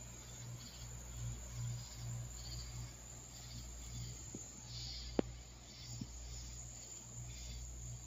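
Night chorus of insects, with high calls pulsing about twice a second over a steady lower drone. A single sharp click sounds about five seconds in.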